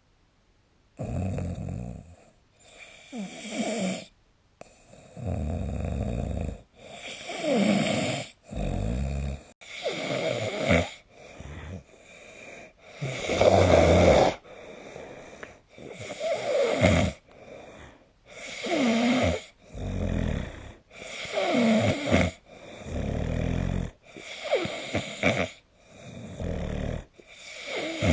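A sleeping person snoring, a snore with each breath and the bursts coming every second or two, several sliding down in pitch. The snoring starts about a second in.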